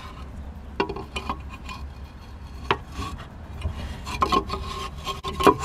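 Hard plastic parts of a Jandy variable speed pool pump rubbing and scraping as the diffuser is worked off over the impeller, with a few sharp clicks and knocks scattered through.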